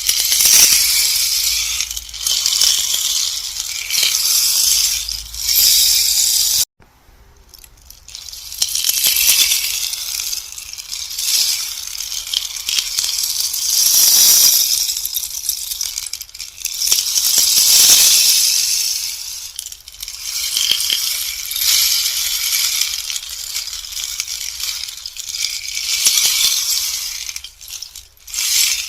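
Rainstick being turned over and over: pellets pattering down inside in swells of a few seconds each, like falling rain. The sound cuts off abruptly about a quarter of the way in, then builds again.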